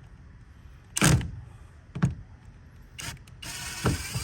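Plastic door-handle parts and clips being worked off a car door by hand: a sharp knock about a second in, a softer one a second later, a click, then about a second of scraping and rattling plastic with a couple of knocks near the end.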